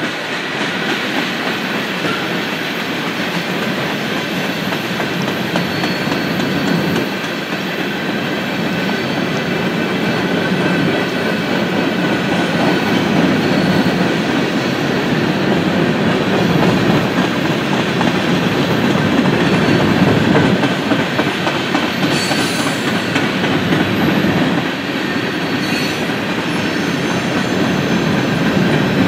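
A long freight train's covered hopper cars rolling past, a steady rumble and clatter of steel wheels on rail.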